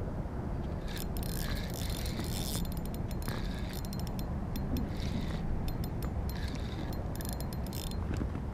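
Spinning fishing reel being cranked to retrieve line, its gears giving a rapid fine ticking in several bursts. A steady low rumble sits underneath.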